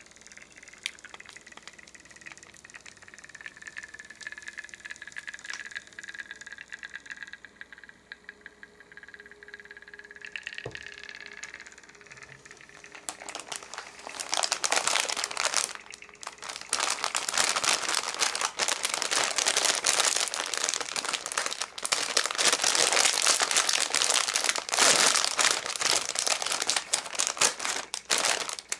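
Soft, faint handling sounds at first, then a clear plastic snack bag crinkling loudly and continuously as it is picked up and handled, starting a little before halfway through.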